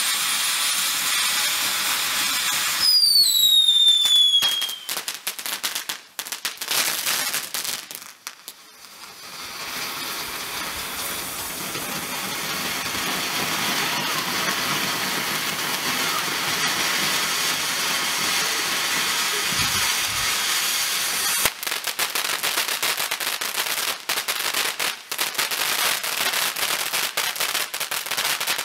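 Small ground firework fountains burning in a fuse-linked chain, hissing steadily as they spray sparks. A loud whistle falls in pitch about three seconds in, and stretches of fast crackling come a few seconds later and again from about twenty seconds on.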